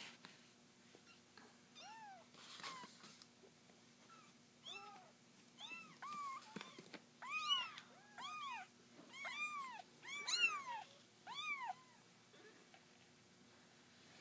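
Three-week-old kitten crying: a run of short, high meows that rise and fall in pitch, few at first, then coming about two a second and louder past the middle.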